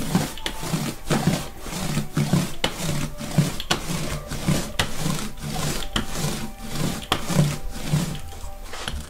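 Rapid back-and-forth rubbing strokes across an inked solar printing plate as a hand works the ink over and off its surface, about two to three scratchy strokes a second.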